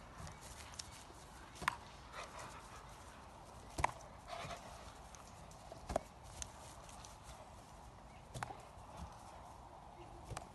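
A dog snapping at a bouncing balloon and bumping it up with its snout: five short, sharp knocks about two seconds apart, with softer scuffling between them.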